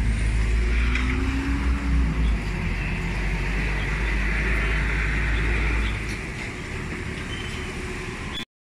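Road traffic noise from a busy city street, with a heavy low rumble that drops away about six seconds in. The sound cuts off abruptly near the end.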